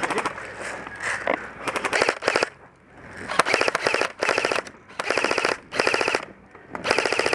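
Airsoft guns firing full-auto in short bursts of rapid clicks, several in a row about a second apart.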